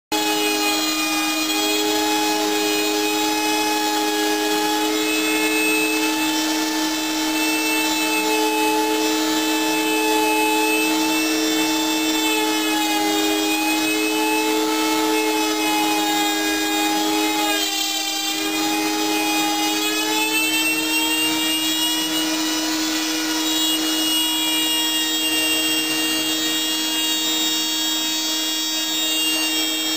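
Router spindle of a homemade CNC machine running with a steady whine while its bit cuts MDF, a rough cutting noise under the whine. There is a brief break in the sound about halfway through.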